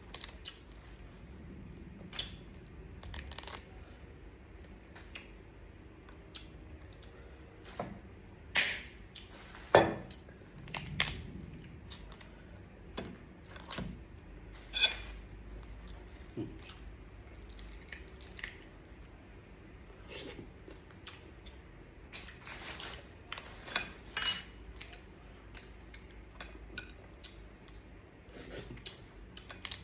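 Scattered clicks and cracks of mud crab shells being broken apart and handled while eating, with occasional clinks against a dish; the sharpest cracks come about 9 and 10 seconds in.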